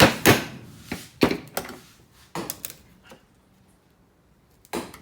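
A run of sharp knocks, about seven in the first three seconds, then a pause and one more knock near the end, as a tool strikes the workpiece during hand shaping.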